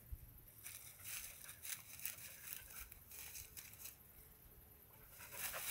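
Faint rustling and crackling of dry grass and brush stems: a run of short crackles over the first few seconds, then quieter, and more again near the end.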